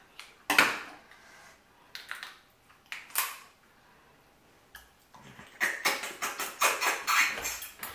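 Close-miked lobster eating: a few separate sharp cracks as the shell is cut with kitchen shears and pulled apart, then, from about five seconds in, a quick run of chewing and lip-smacking as the meat is eaten.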